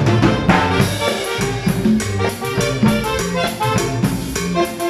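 A small band playing live: electric bass, keyboard and drum kit with conga, in a steady dance rhythm.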